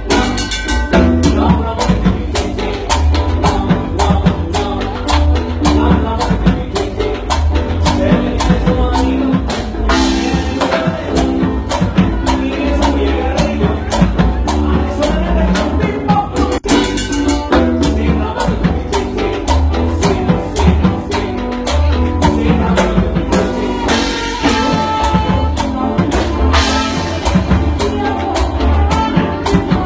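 Latin tropical dance band playing, with drum kit and hand percussion keeping a steady beat of about two strokes a second under instruments and some singing.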